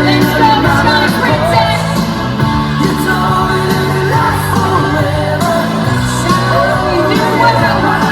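Pop-rock song with a lead vocal, played loud and without a break.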